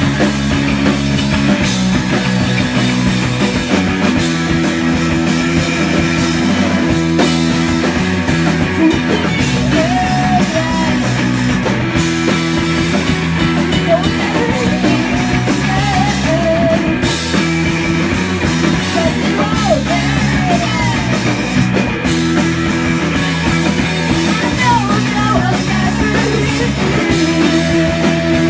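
Live punk rock band playing loud: electric guitar, bass guitar and drum kit, with singing through the middle stretch.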